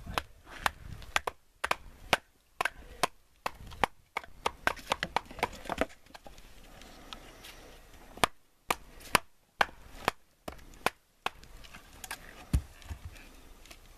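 Repeated sharp knocks of a wooden baton beating the spine of a large knife driven down through a log, batoning it apart to split firewood. The strikes come irregularly, often in quick runs of several, with a short let-up in the middle.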